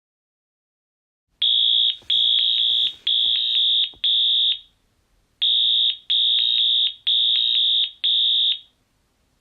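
Fire alarm going off: a loud, high-pitched electronic beep repeated in groups of four, each beep under a second long, with a short pause between groups. It starts suddenly about a second and a half in.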